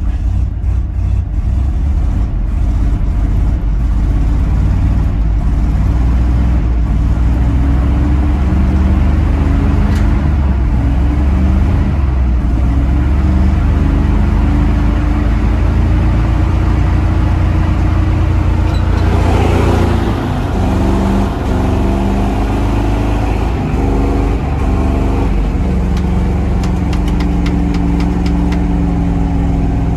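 Chevy C60 truck's gasoline engine running steadily after a tune-up, running smoother than before it. The engine speed dips briefly and recovers about two-thirds of the way through.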